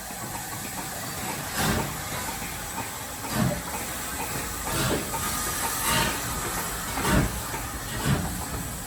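USATC S160 2-8-0 steam locomotive pulling away with its train: slow exhaust chuffs that come quicker over about six beats, over a steady hiss of steam.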